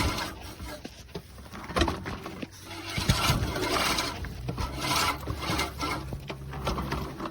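Earthwise 1715-16EW 16-inch seven-blade push reel mower cutting long grass: a rasping whir from the spinning reel as its blades shear the grass, swelling and fading in waves with each push, with scattered short clicks.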